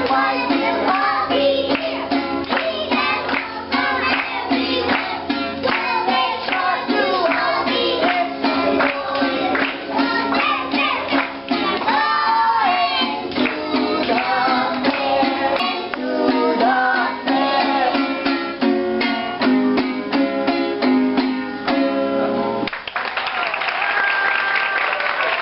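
Children singing a song with music behind them; about three-quarters of the way through the music stops and the audience applauds.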